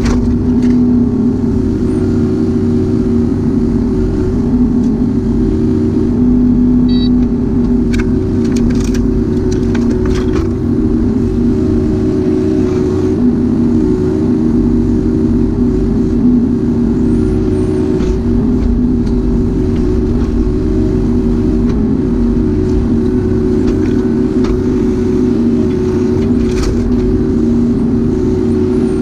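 Kubota U-35-4 mini excavator's diesel engine running steadily at working speed, with a few sharp knocks along the way.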